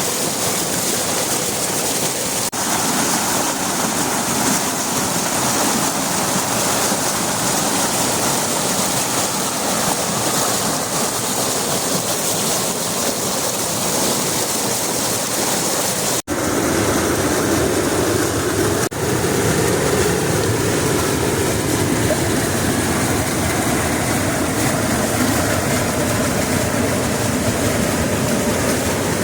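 Flowing river water rushing steadily. It breaks off for an instant about halfway through and comes back as a deeper, fuller rush.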